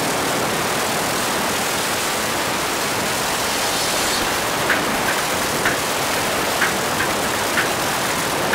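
Freefall wind rushing over the camera flyer's microphone: a steady, loud rushing noise. From about halfway through, short high blips repeat roughly twice a second over it.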